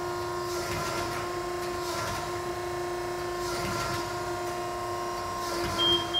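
Wysong hydra-mechanical press brake running: a steady motor hum with several held tones, with a swell of hiss every one to two seconds as the machine cycles through its bends. A short high beep sounds near the end.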